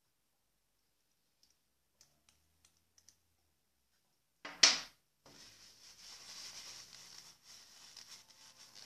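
A few faint clicks, then a short, loud brushing noise about halfway through, followed by paper tissue rustling and crinkling as it is rubbed around a fountain pen to wipe off ink.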